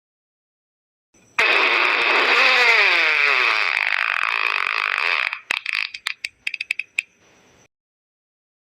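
Fart sound effect: a long, loud, drawn-out fart whose pitch wavers and falls, ending in a rapid sputter of short pops.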